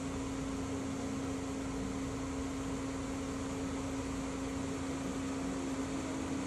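A steady mechanical hum, one even tone held over a wash of hiss, unchanging throughout.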